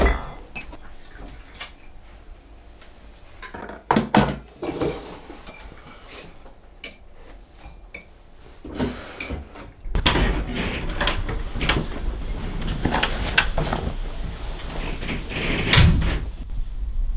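Kitchen handling noises: scattered knocks and clatters of cupboard doors and things being moved. They grow busier from about ten seconds in, over a low rumble.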